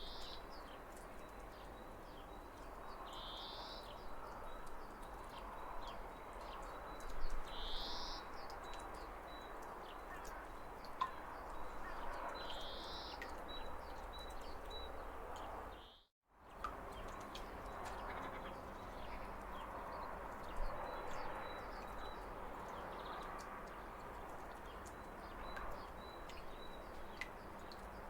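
Steady rush of falling water with birds chirping: a few short high calls about four seconds apart in the first half, and a brief complete dropout of all sound just past the middle.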